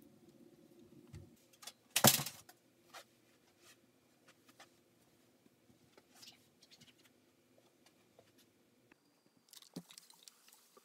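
Fabric being handled and spread out by hand: soft rustles and light scattered taps, with one short, loud noise about two seconds in and more rustling near the end.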